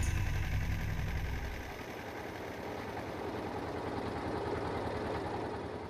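Small engine of a water pump running with a low, rapid chugging beat as water gushes from its outlet pipe. About two seconds in, the deep low end drops away, leaving a lighter, steady engine beat.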